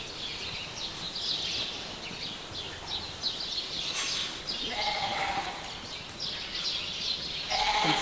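Sheep bleating in a large flock: one clear bleat about five seconds in and another starting near the end, with short high chirps throughout.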